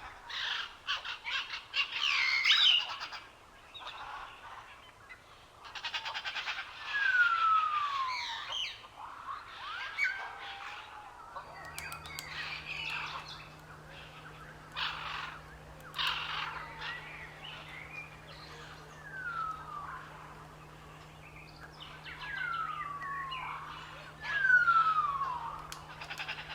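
Several birds chirping and calling, with quick chips and trills and a repeated whistled note that slides down in pitch. A faint steady low hum begins about halfway through.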